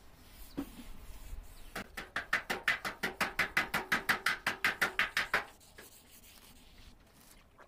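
Hand-held abrasive pad scrubbed quickly back and forth over the wet painted door panel of a Maruti Gypsy, about seven strokes a second. It starts about two seconds in and stops after nearly four seconds.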